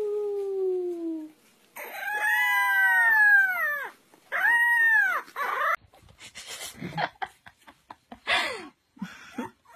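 A puppy howling: three long, drawn-out howls, the first sliding down in pitch, the next two rising and then falling. In the last few seconds, a few short yips and scuffing knocks.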